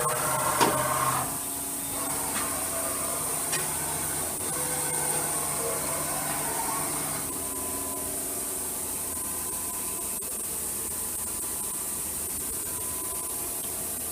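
Okuma Cadet Mate vertical machining center running: a steady hum with several whining tones and a hiss, typical of the machine's axes being jogged. There is one sharp click about half a second in, and some of the whining tones stop about seven seconds in.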